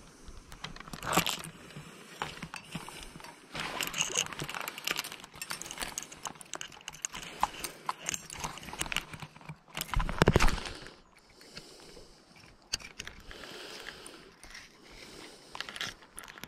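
Close handling noise as hands work a hook out of a small panfish with forceps: rustling, crackling and small clicks against the camera, with a heavier thump about ten seconds in.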